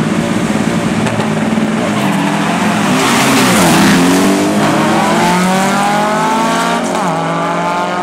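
Two VW Beetles' air-cooled flat-four engines at full throttle in a drag race. The nearer car goes by loudest about three and a half seconds in, its pitch bending down as it passes. Then the engine notes climb steadily, drop at a gear change about seven seconds in, and climb again as the cars pull away down the strip.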